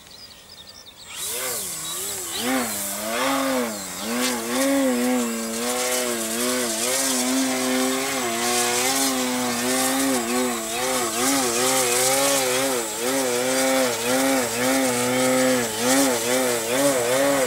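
Radio-controlled aerobatic model plane's motor and propeller running hard, starting about a second in. Its pitch wavers up and down constantly with throttle corrections as the plane hangs nose-up on its propeller.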